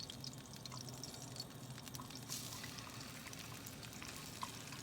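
A little cooking oil heating in a frying pan: a faint sizzle with scattered small pops.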